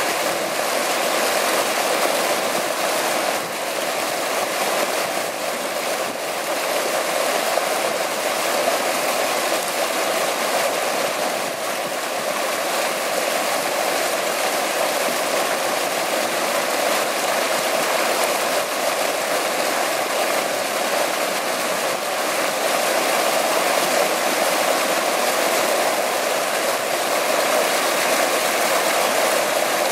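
Water spilling in a sheet over the rim of a domed fountain stone into a churning pool: a steady rushing splash.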